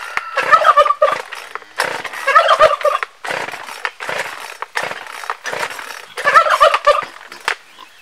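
Turkey gobbling three times, each a quick warbling call, about half a second, two seconds and six seconds in, with short rough noises in between.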